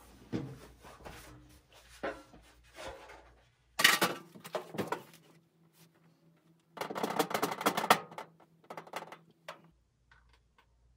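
Screwdriver bits rattling and clicking as they are rummaged through and swapped, with scattered clicks and two denser bursts of clatter, about four and seven seconds in.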